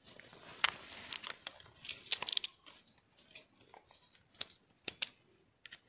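Dry leaf litter and twigs crunching and crackling in irregular bursts, busiest in the first half, with a faint steady high-pitched tone for a second or two in the middle.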